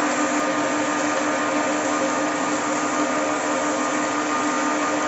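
Single-screw oil press running steadily while pressing soybeans: a constant hum over an even mechanical whir.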